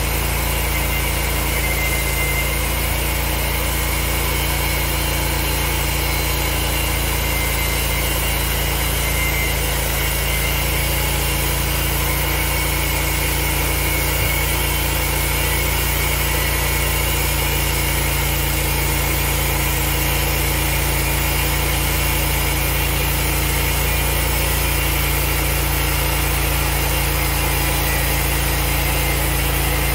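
Portable band sawmill running steadily, its engine-driven blade cutting through a squared log as the saw head feeds along it.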